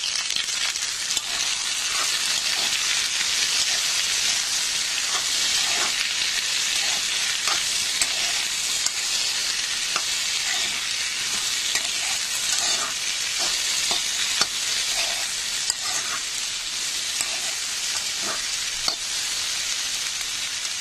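Chopped okra sizzling in hot oil in a kadhai with fried tomato, peas and onion, stirred with a metal spoon that scrapes and clicks against the pan many times over the steady sizzle.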